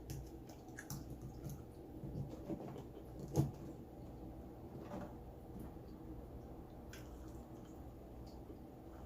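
Mouth sounds of a person eating: soft chewing and smacking with small clicks, and one louder low sound about three and a half seconds in.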